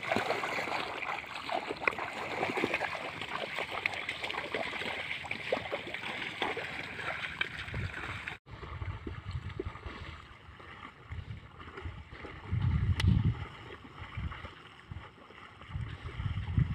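Mud and water sloshing and splashing as water buffalo and a farmer wade and a wooden leveller is dragged through a flooded rice paddy, a dense crackle of small splashes. It cuts off abruptly about eight seconds in, leaving quieter splashing broken by a few bursts of low rumble.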